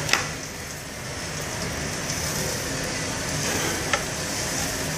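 Knife and meat handled on a cutting board while a beef tenderloin is trimmed of its sinew: a sharp knock just after the start as the meat is turned over onto the board, and another knock about four seconds in as the knife meets the board, over a steady hiss.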